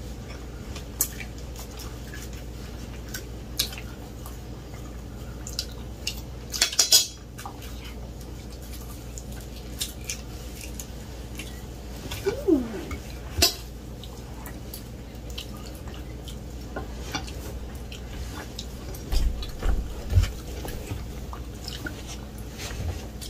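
Forks and fingers clinking and scraping on dinner plates during a meal: scattered light clicks, with a louder clatter about seven seconds in and a few dull thumps near the end.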